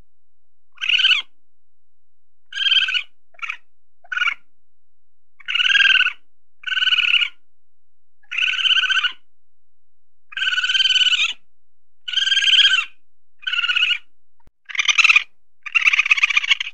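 Weasel calling: about a dozen short, rapidly pulsed trilling calls, each under a second long, repeated every one to two seconds, with the last two the loudest.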